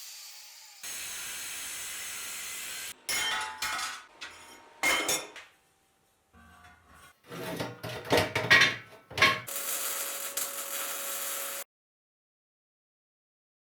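Metal pieces clinking and clanking as they are handled, in a run of separate knocks and clatters. Steady hiss comes before and after and cuts off suddenly.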